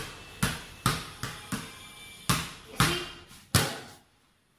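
A basketball dribbled on a hard floor: about eight bounces, a quick run a little under half a second apart, a short pause, then a few slower bounces. The bouncing stops about half a second before the end, as the ball is gathered.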